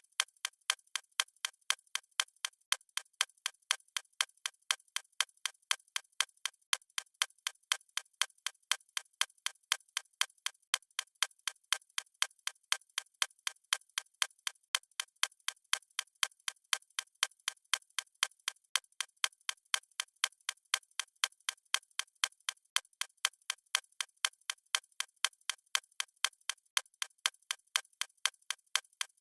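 A watch ticking at a steady, even rate.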